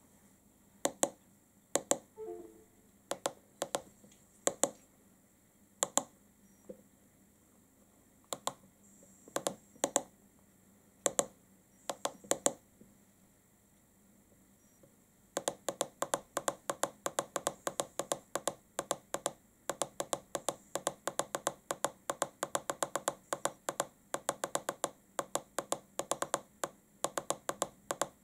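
Button clicks on an iCarsoft LR V1.0 handheld car diagnostic scan tool. Scattered single presses come first, then from about halfway a fast, even run of clicks, about four a second, as the down-arrow button is pressed over and over to scroll a menu list.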